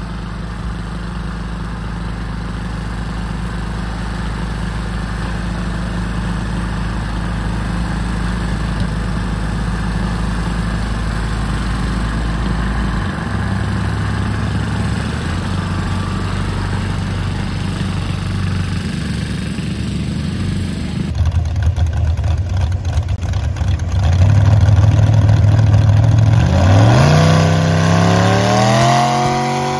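Engine idling steadily for about twenty seconds. Then a modified garden pulling tractor's engine gets louder and revs up, its pitch rising steeply near the end.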